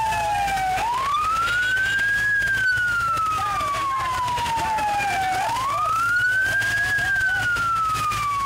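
Emergency vehicle siren wailing in a slow cycle: each wail rises quickly, then falls slowly over about three seconds, heard twice, over a steady low hum.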